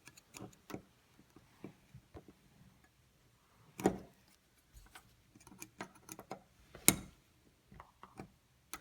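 Scattered small clicks and taps as a deadbolt lock is handled and worked on with tools, with two sharper knocks about four and seven seconds in.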